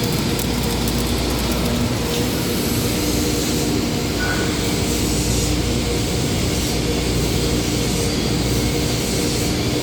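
Loud, steady machinery din of a metal fabrication shop: a dense rushing noise with a low hum underneath, unchanging throughout.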